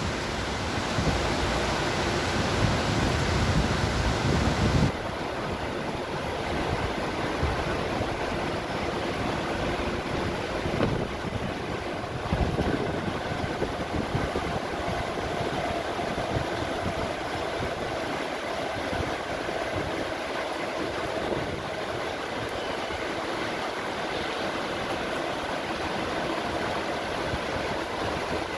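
Heavy rain falling steadily, an even hiss, with the hum of traffic on wet roads beneath it. A heavy low rumble, typical of wind buffeting the microphone, fills the first five seconds and cuts off suddenly.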